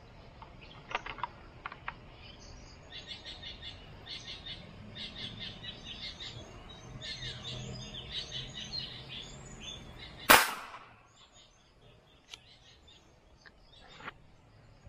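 Birds chirping in quick repeated calls. About ten seconds in comes a single loud, sharp shot from a wooden-stocked fishing gun fired down at a fish in the water.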